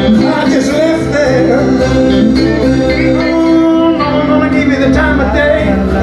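Live band playing a song: a man singing over strummed acoustic guitar, electric guitar and piano accordion.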